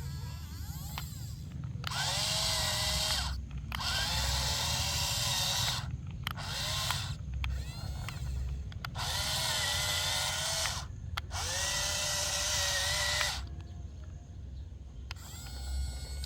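A toy excavator's small electric gear motors whirring in about five bursts of one to two seconds each, with short pauses between, the whine dipping in pitch as each burst starts.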